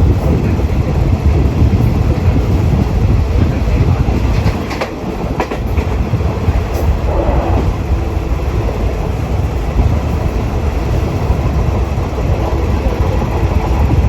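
A train running on rails: a steady, loud rumble with a few sharp clicks of the wheels over the track between about five and seven seconds in.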